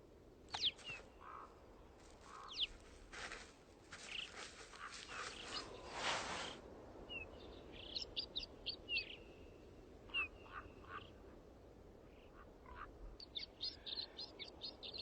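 Small birds calling: scattered short, high whistled notes that slide downward, and quick series of chirps about eight seconds in and again near the end.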